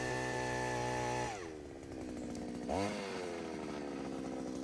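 Takyo TK-3P earth auger's two-stroke single-cylinder petrol engine running steadily. About a second and a half in its speed drops, it rises briefly near the three-second mark, and it then settles to a steady lower-speed run as the auger bit comes up out of the hole.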